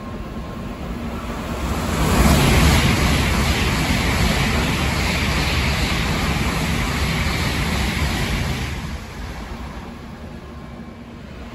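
Shinkansen bullet train passing through the station at speed on the non-stop track without stopping. A loud rush of wind and rolling noise builds about two seconds in, holds for about seven seconds, and falls away suddenly as the tail clears.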